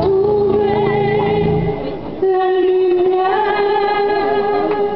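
Music: a woman singing two long held notes over an accompaniment. The low part of the accompaniment drops out before the second note begins.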